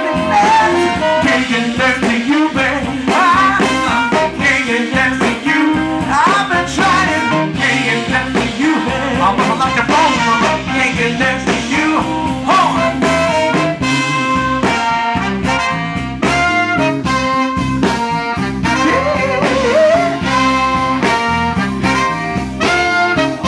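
Live funk band playing an instrumental passage: saxophone and trumpet carry the horn lines over keyboard, bass guitar, electric guitar and drums. In the second half the music settles into short, rhythmic repeated hits.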